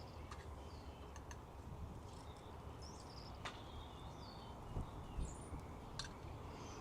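Faint outdoor ambience with birds chirping now and then, a few light clicks, and two soft low thumps about five seconds in.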